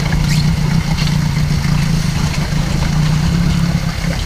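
Dinghy outboard motor idling steadily with a low, even hum.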